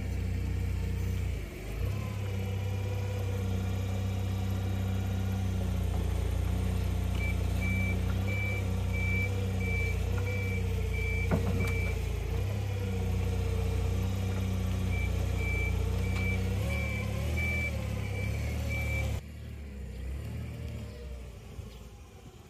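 A working machine's engine runs steadily, its pitch wavering a little, while its reversing alarm beeps about twice a second, on and off. Near the end the engine sound drops sharply.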